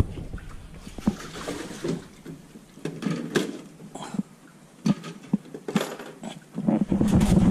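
Scattered clicks, light knocks and rustling as gear is handled on a boat deck, with a louder low rumbling noise near the end.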